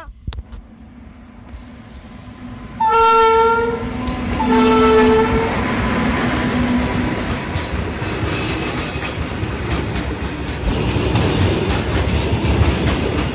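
Electric freight locomotive sounding its horn in two blasts, about three and five seconds in, as it comes close. It then passes, followed by a rake of hopper wagons rolling by with steady wheel rumble and clicking over the rail joints.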